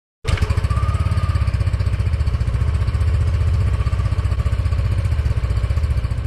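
Yamaha Aerox S scooter's single-cylinder engine idling steadily, cutting in suddenly just after the start.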